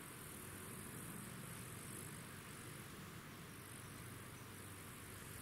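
Faint high-pitched chirring of insects, swelling in slow pulses, over a low steady outdoor rumble.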